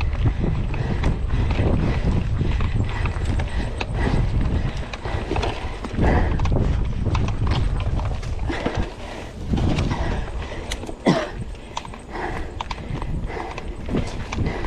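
Mountain bike rattling and knocking as it rides fast over a rough dirt trail, with many irregular clacks over a steady low rumble.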